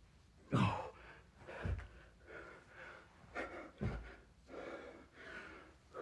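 A person breathing hard and gasping while doing burpees, with a few dull thuds of hands and feet landing on the floor.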